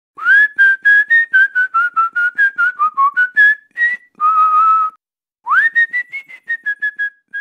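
A person whistling a tune through pursed lips: a quick run of short notes that wander up and down, one longer held note about four seconds in, then a rising swoop into another run of short notes.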